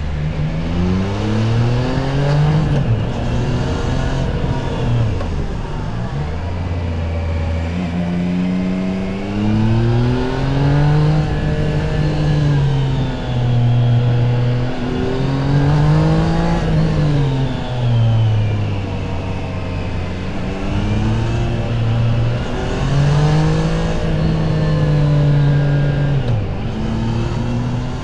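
Triumph Tiger 660 Sport's 660 cc inline three-cylinder engine with stock exhaust, ridden hard through a run of bends. The revs climb and fall again and again: it pulls up through the revs, then drops back as the throttle is closed, about five times.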